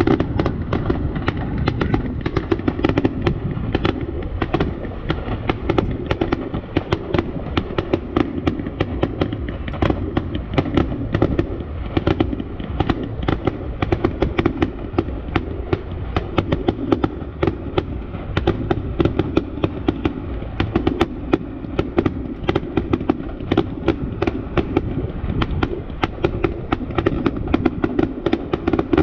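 Fireworks display: a rapid, continuous barrage of bangs and crackling pops, several a second, over a steady low rumble.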